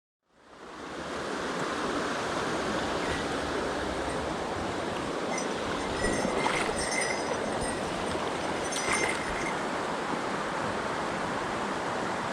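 Mountain stream water rushing steadily, fading in from silence at the start, with a few brief high chirps and ticks around the middle.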